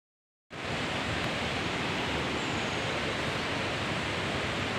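Fast-flowing river water rushing, a steady even noise that starts about half a second in.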